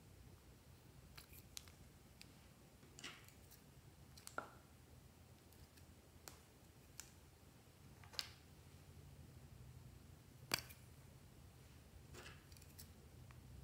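Scattered faint clicks and snips, about nine in all, as scissors cut pieces off a lip balm stick and plastic lip balm tubes are handled. Between them there is near silence.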